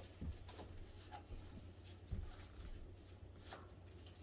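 Faint rustling and light clicks of things being handled, with a dull thump about two seconds in, over a steady low hum.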